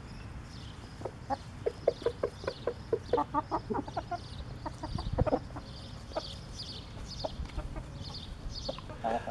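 Rooster's food call (tidbitting): a fast run of short, repeated clucks, about three to five a second, which tell his hens that he has found food. The calls thin out after about five seconds.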